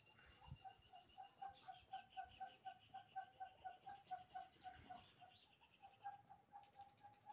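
Faint, steady string of short bird calls, about four a second, with a second, faster and higher-pitched series of calls from about two to six seconds in.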